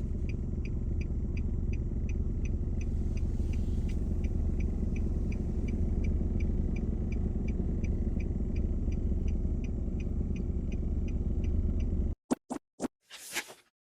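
A steady low mechanical rumble with a light, regular ticking about three times a second. It cuts off abruptly near the end, followed by a few sharp clicks and a short whoosh.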